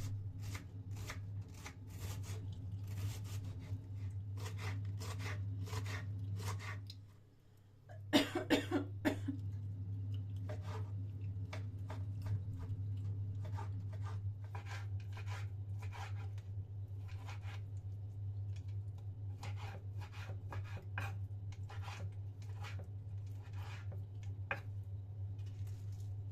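Light clicks, taps and knocks of household objects being handled, repeated over a steady low hum. The sound drops out briefly about seven seconds in, then a short burst of louder clatter follows.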